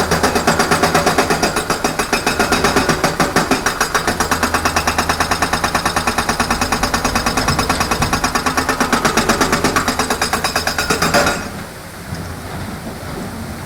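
Excavator hydraulic breaker hammering rapidly, about six blows a second, over the engine. It stops about eleven seconds in, leaving a steady rushing noise.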